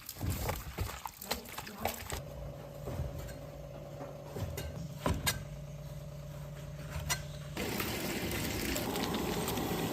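Duck intestines being washed by hand: a few wet knocks and handling sounds, then a steady low hum, which cuts off about seven and a half seconds in as a steady rush of running water begins.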